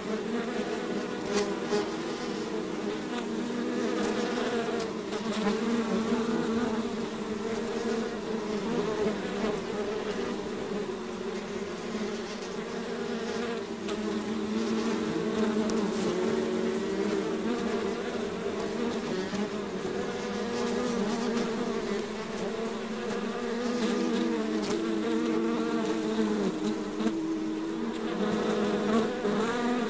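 Many bees buzzing together in a dense, steady hum that wavers slightly in pitch.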